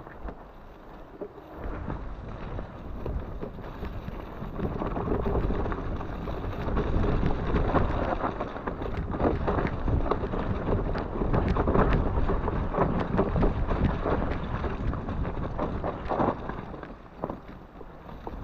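Mountain bike descending a wet, muddy forest singletrack: wind rushing over the camera microphone, with tyre noise and frequent knocks and rattles from the bike over rough ground, loudest through the middle.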